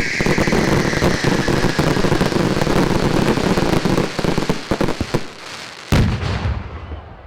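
Fireworks: a whistle fading out at the start, then a dense rapid crackle of many small bangs for about five seconds, and one loud bang about six seconds in.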